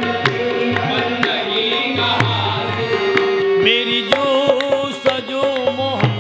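Qawwali music: a harmonium plays the melody over dholak drum strokes, with the chorus clapping in time. About four seconds in, male voices come in singing.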